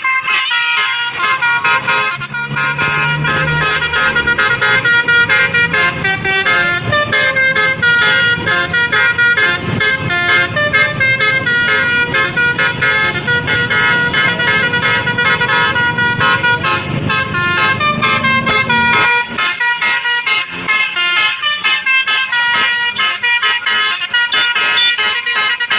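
Basuri telolet multi-tone bus horn with roof-mounted trumpets playing a fast melody of short notes that step up and down in pitch, with a low rumble underneath that stops about three quarters of the way through.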